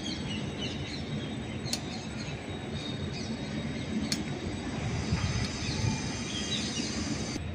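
Steady rumbling background noise with a faint high whine, over which small tangra catfish are cut on a boti blade: a few sharp clicks of the blade and light rustles of a plastic bag.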